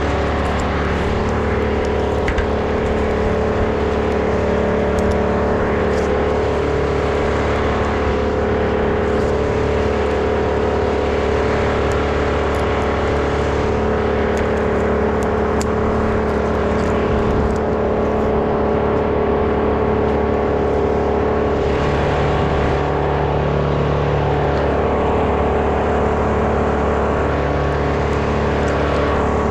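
A small petrol engine running steadily at a constant high speed.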